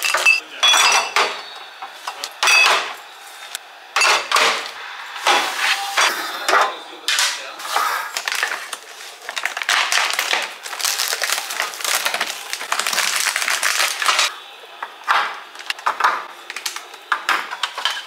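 Small glass bottles clinking and knocking as they are set into a clear plastic bin. About seven seconds in comes a stretch of crackling from a thin plastic egg pack being opened, then eggs clicking as they are set into a plastic egg tray near the end.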